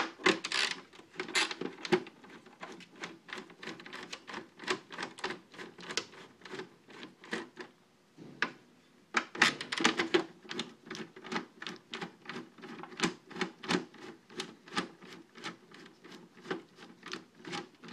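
Screwdriver backing screws out of a plastic TV back cover: a steady run of quick clicks, several a second, with a short pause about eight seconds in.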